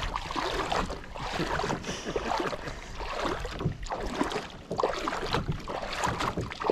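Wind buffeting a body-worn GoPro's microphone, with a low rumble and scattered knocks and rustles from handling aboard a small fishing boat.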